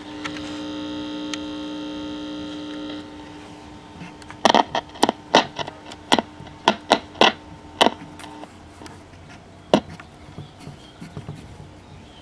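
Clock radio's speaker giving out a steady electrical hum for about three seconds, then a fainter hum broken by a quick run of sharp crackles and pops, with one more pop near the end. The set is powered through a series light bulb while its filter capacitor reforms.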